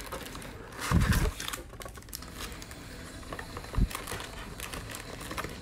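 Cardboard retail box of trading cards being opened by hand: the cardboard and the wrapped card packs inside scrape and rustle. A few dull knocks, the loudest cluster about a second in and another near four seconds.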